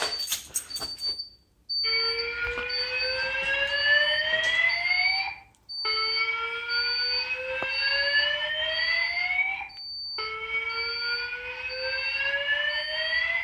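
Fire alarm speaker strobe sounding a slow-whoop evacuation tone: three slow rising sweeps of about four seconds each, with short breaks between them, starting about two seconds in after some clicks. A faint high beep pulses steadily in the background.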